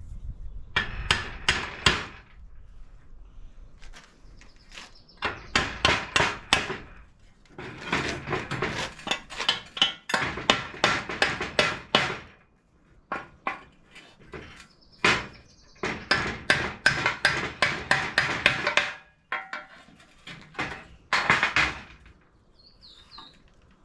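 Hammer striking metal in several runs of rapid blows, some strikes ringing briefly.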